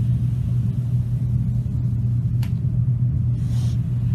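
A steady low hum, with a faint click about two and a half seconds in and a short soft hiss about a second later.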